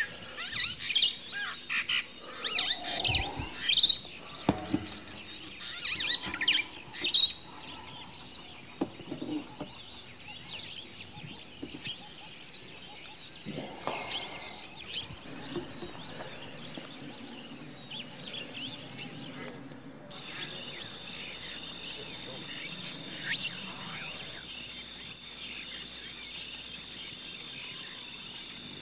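Small birds chirping and calling over a thin, steady high trill, with a few soft knocks in the first few seconds. About twenty seconds in, the sound cuts abruptly to a different, evenly pulsing high-pitched animal chorus.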